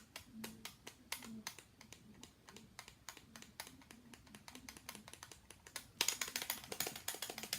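Rapid plastic clicking from the Bop It XT carabiner toy's button being pressed over and over while the toy is switched off. The clicks come faster and louder about six seconds in.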